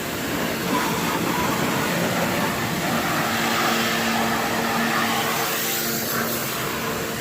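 Kawasaki portable electric pressure washer running, its water jet spraying in a steady hiss while rinsing a motorcycle, with a faint motor hum underneath.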